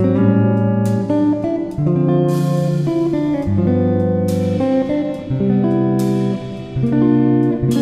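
Instrumental background music with a plucked guitar lead, its notes changing about every half second.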